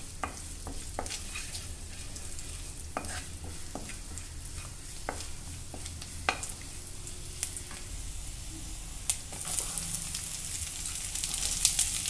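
Crushed garlic sizzling in melted butter in a nonstick kadai, stirred with a wooden spatula that knocks and scrapes against the pan every second or so. The sizzle grows louder near the end.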